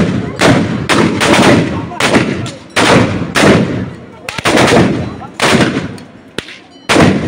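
Ragged volley of gunfire from many long-barrelled guns fired by a crowd, with black-powder smoke filling the ground. The shots are loud and come at uneven intervals, roughly two a second, some overlapping and each with a short echo.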